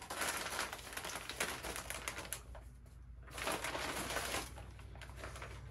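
Brown kraft-paper bag crinkling and rustling as it is torn open and rummaged by hand, in two spells with a short pause about two and a half seconds in.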